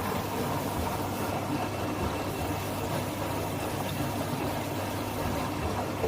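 Midea MF768W front-load washing machine running: a steady low hum.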